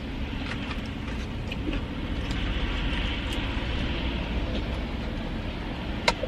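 Steady low background rumble, with a few faint clicks and a sharper click near the end.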